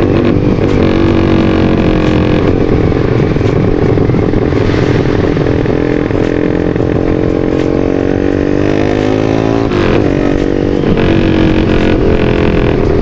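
Yamaha Vixion single-cylinder four-stroke, bored up to about 200 cc, pulling hard under full throttle. Its pitch climbs steadily for several seconds, falls sharply at an upshift about ten seconds in, then climbs again.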